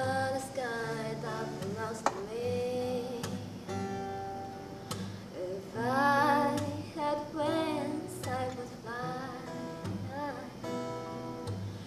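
A woman singing, accompanying herself on an acoustic guitar, with some long held sung notes.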